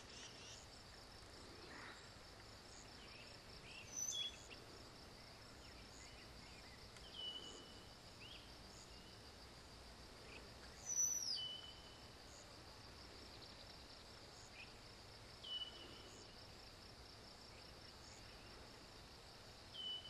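Faint meadow sounds: a bird repeats a short song phrase about every four seconds, five times, over a steady high insect trill. One louder call with a high falling note comes about eleven seconds in.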